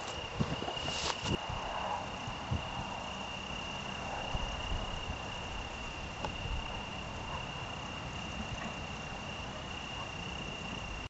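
A cricket trilling steadily on one high pitch at night, with a few faint knocks about a second in.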